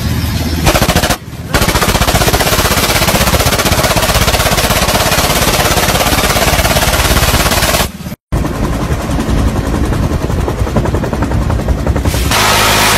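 Belt-fed machine gun firing long, rapid continuous bursts, with a brief pause about a second in and a short break near eight seconds. In the last second an engine runs steadily.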